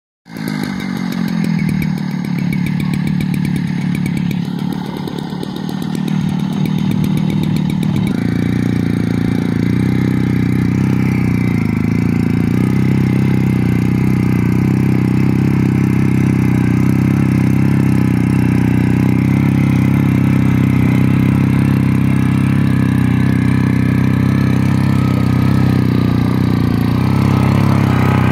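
Small petrol mini tiller's engine running steadily while its tines churn dry soil. The note is rough and pulsing for the first eight seconds, then changes and runs smoother and steady.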